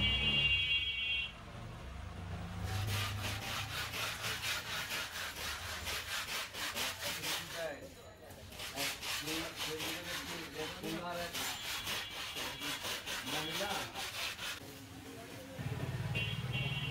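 Lumps of charcoal scraping and clattering against a steel bowl and each other as they are scooped from a sack and tipped into a metal brazier. A few seconds in comes a stretch of quick, even scraping strokes, followed by more uneven rattling.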